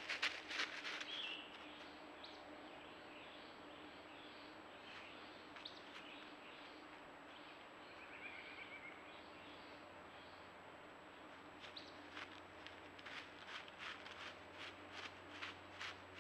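Faint outdoor ambience with a few short bird chirps, and runs of quick crackling ticks near the start and again near the end.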